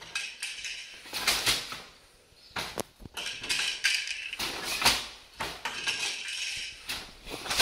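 Weaving at a Schacht Baby Wolf floor loom: sharp wooden clacks and knocks, one every second or two, as the shuttle is thrown and caught, the beater is pulled against the cloth and pushed back, and the shafts change with the treadles.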